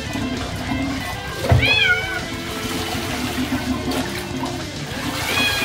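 Kitten meowing twice while being bathed, once about a second and a half in and again near the end, with bath water sloshing around it. Background music runs underneath.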